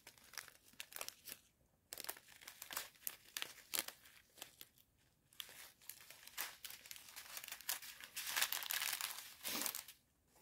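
Clear plastic bags of diamond painting drills crinkling and rustling as they are handled, in a run of quick crackles that grows dense near the end.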